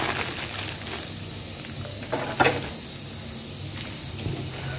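Steady hiss of a pressure cooker venting steam. About halfway through comes a short handling noise as the plastic mailer package is moved.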